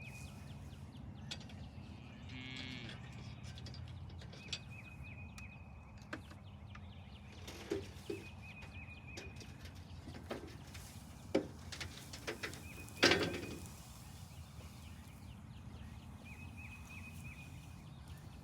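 Cattle gathering for hay, with a few short, faint sounds from the herd and some knocks over a low, steady rumble; the loudest sound is a brief one about two-thirds of the way in.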